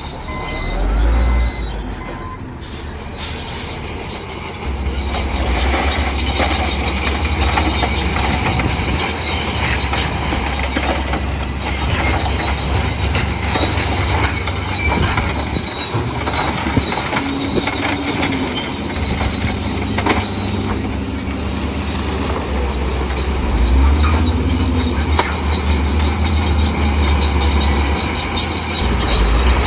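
Crawler bulldozer at work: its diesel engine runs under load with a low, steady rumble, and its steel tracks and rock give a continuous run of metallic clanks and grinding.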